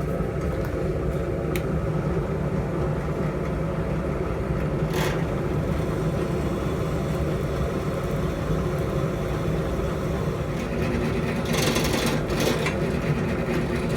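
A steady machine hum in a metal shop, with short harsh noises about five seconds in and again near the end.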